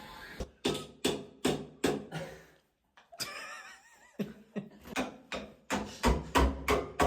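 Repeated hammer blows striking a wall during demolition, about two to three sharp knocks a second. They break off briefly partway through, then resume a little faster.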